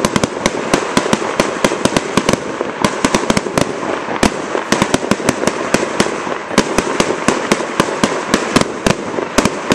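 Fireworks barrage: a dense, unbroken string of sharp bangs and crackles, several a second, over a continuous crackling haze.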